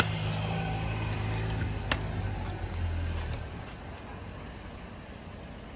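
Latch of a campervan's gas-bottle locker door clicking shut, two sharp clicks about two seconds apart, over the steady low hum of a vehicle engine that fades out about three and a half seconds in.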